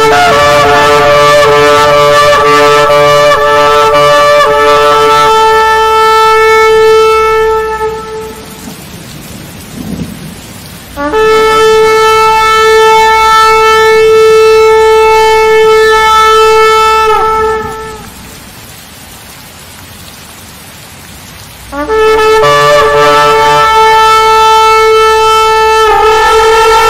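Shofar (ram's horn) blasts: three long held notes of several seconds each, separated by gaps of a few seconds. A low rumbling noise fills the gaps between them.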